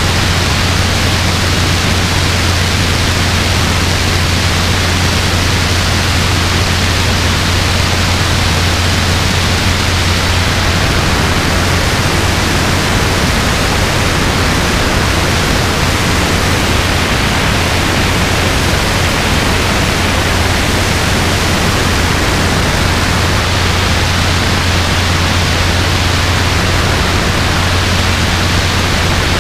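Robinson R22 helicopter in steady cruising flight: constant engine and rotor noise with a strong low hum, mixed with wind rushing over the microphone.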